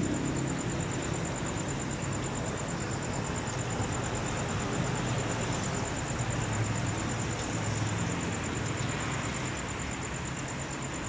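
Airbus A320-214's CFM56 turbofan engines heard as a broad jet rumble and hiss, slowly fading as the airliner recedes after passing overhead.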